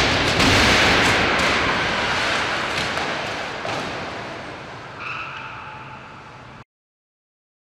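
Stunt cars flung through the air crash down onto the road, the loud crash dying away over several seconds with scattered clatters of debris. A brief high tone sounds about five seconds in, and the sound cuts to silence about a second before the end.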